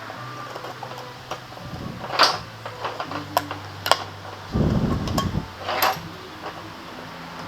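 Workshop sounds during scooter servicing: sharp clicks and knocks of metal tools over a steady low hum, with a short low rumble about halfway through.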